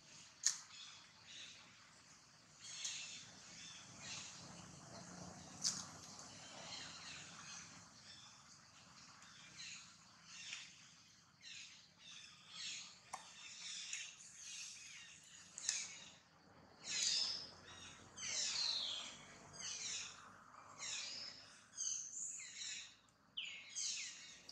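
Short high-pitched chirping animal calls repeating, sparse at first and coming thick and fast in the second half, each call sliding downward in pitch, with a couple of sharp clicks near the start.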